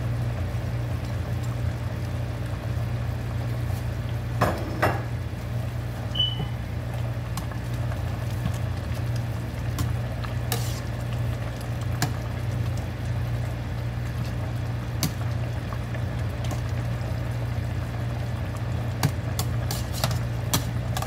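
Metal spoon stirring a pot of simmering chicken soup, clinking now and then against the stainless-steel pot, a few sharp clinks near the end, over a steady low hum.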